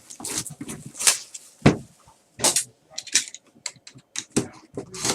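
Handling noise from a product box and its packaging being opened: irregular clicks, taps and short rustles of cardboard and plastic, with several sharper knocks spread through.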